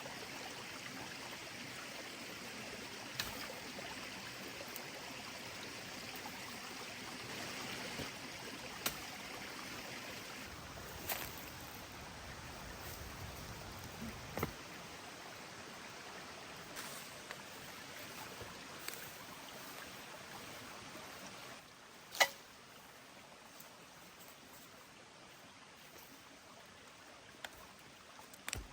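Steady running-water noise with a few scattered sharp snaps or clicks. The water noise drops quieter a little past twenty seconds in, just before the loudest snap.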